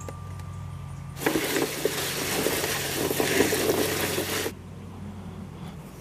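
Pole beans rustling and clattering against each other and a plastic tub as they are handled, a dense rustle full of small clicks that starts about a second in and stops sharply about three seconds later.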